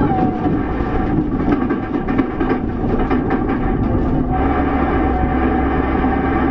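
Cockpit sound of a Porsche race car: the engine note drops at the start as the car slows, then a few seconds of rapid knocking and rattling clatter. About two-thirds of the way in, the engine settles to a steady tone over a low rumble.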